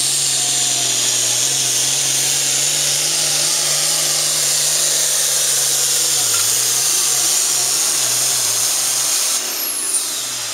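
International 1066 Super Farm pulling tractor's turbocharged diesel engine running flat out under load as it drags the pulling sled, a steady engine note with a high whine over it. About a second before the end the engine backs off and the level drops, as the red flag ends the pull.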